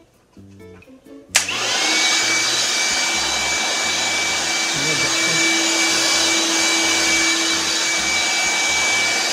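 DeWalt 20V cordless wet/dry vacuum switched on about a second and a half in. Its motor spins up to a steady whine and rushing airflow and keeps running.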